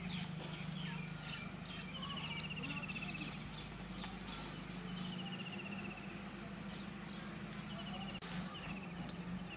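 A bird calling again and again, each call a short trill falling slightly in pitch, every couple of seconds, over a steady low hum with a few light clicks.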